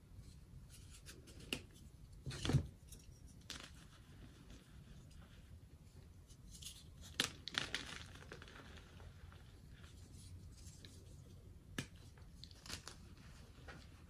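Hands crushing and crumbling dyed chalk blocks into powder: scattered soft crunches and crackles, the loudest about two and a half seconds in, more around seven to eight seconds and near twelve seconds.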